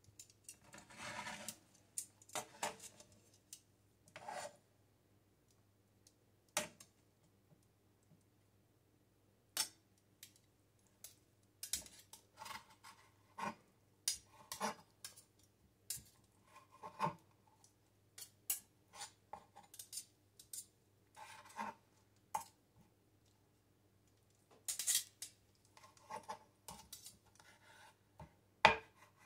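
Santoku knife chopping cooked beef on a plastic cutting board: irregular short knocks of the blade on the board, some with a brief ring, in scattered runs.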